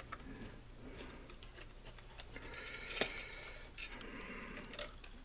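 Faint rustling and light clicks of insulated hookup wires being pushed and routed by hand inside a metal radio power-supply chassis, with two soft stretches of rubbing and one sharper click about three seconds in.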